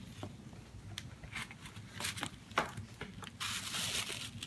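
Ribbon and cardboard rubbing and scraping as a gift box is untied and opened, with scattered small clicks. About three and a half seconds in comes a louder rustle of tissue paper being unfolded.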